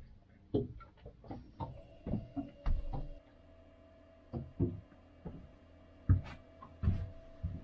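Scattered knocks and low thumps of a person moving about inside a small boat's cabin, at irregular intervals, with a faint steady hum setting in about two seconds in.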